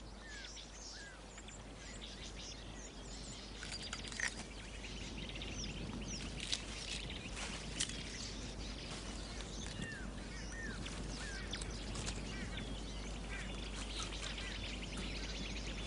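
Outdoor natural ambience with many small birds chirping, short rising and falling calls scattered throughout, over a steady background hiss with a few sharp clicks.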